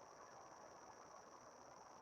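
Near silence: a faint, steady high-pitched drone of night insects such as crickets over low background hiss.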